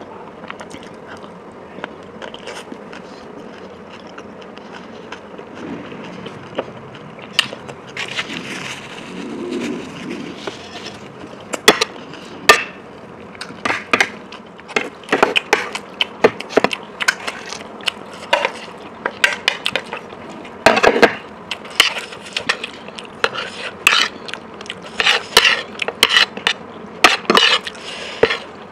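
Close-miked eating sounds: chewing and crunching of food with sharp clicks and scrapes of cutlery on a plate. The sounds are sparse for the first several seconds, then come thick and fast from about eight seconds in.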